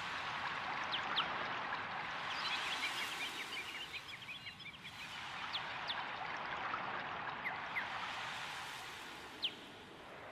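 Outdoor night ambience: a steady rushing hiss that swells and fades, dotted with many short high chirps, thickest about three seconds in.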